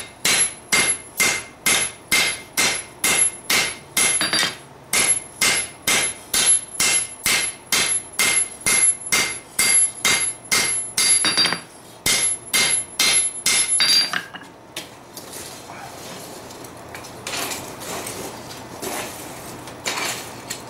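Hand hammer striking a red-hot steel sword blade on an anvil, steady blows about two to three a second with a ringing tone after each, drawing out the blade's taper. The hammering stops about two-thirds of the way through, leaving quieter, irregular shop noises.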